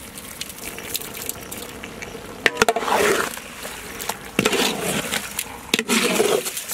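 Prawn masala cooking in a large pot: a low sizzle, then from about two and a half seconds in, three louder wet, squelching stirring strokes about a second and a half apart as the salted prawns are turned over.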